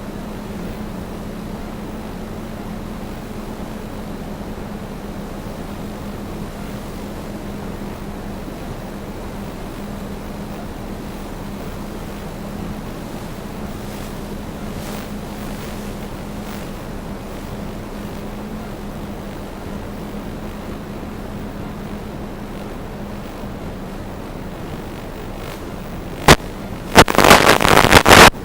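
DJI Phantom 2 quadcopter propellers humming steadily in flight under a haze of wind noise. About two seconds before the end there is a sharp click, then a very loud burst of crackling.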